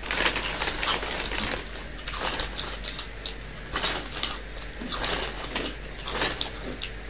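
Crunchy packaged chips being chewed, a run of irregular crisp crunches.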